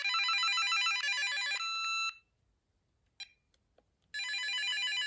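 VTech CS5121 cordless phone ringing with an electronic ring tone: a rapid warbling trill that cuts off about two seconds in. After a short pause with a couple of faint clicks, the ring starts again.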